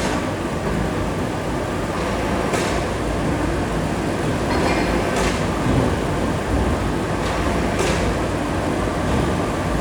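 Heavy forging-plant machinery running with a dense, steady rumble, broken by a short sharp burst of noise about every two and a half seconds.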